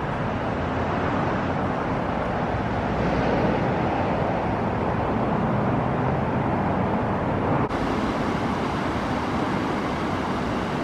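Shallow river rushing over a rocky bed: a steady, even rush of water.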